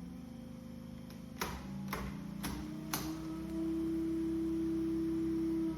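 Minn Kota electric trolling motor running with a steady electric hum. Several clicks are heard as it is switched up through its speed settings, and from about three and a half seconds in the hum becomes a louder, higher steady whine.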